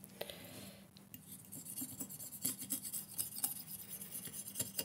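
Light clinks, taps and rustling of small tools and containers being handled on a work table, in short scattered clicks.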